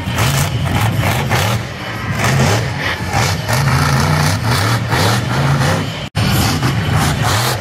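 Monster truck engine revving hard as the truck drives across the dirt arena, its pitch surging up and down over and over. The sound cuts out for an instant about six seconds in.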